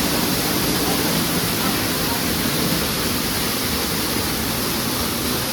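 Steady rush of falling water from an indoor waterfall feature, with faint voices underneath.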